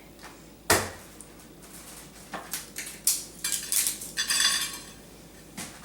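Cutlery and dishes clinking and scraping: one sharp knock about a second in, then a run of clinks and scrapes with a longer rasping scrape a little past the middle.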